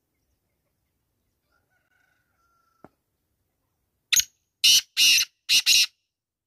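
Male black francolin calling at close range: five loud, harsh notes in quick succession, starting about four seconds in: a short first note, then two pairs.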